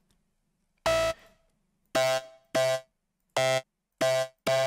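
Short software-synth lead notes from Synplant 2, six in all at the same pitch with gaps of silence between them. They are patches that the plugin's AI is generating to imitate a sampled lead sound.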